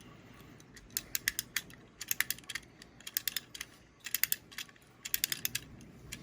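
Clockwork spring of a Schylling tin wind-up Atomic Robot Man being wound by its key, the ratchet clicking in quick bursts of several clicks, one burst about every second as the key is turned stroke by stroke.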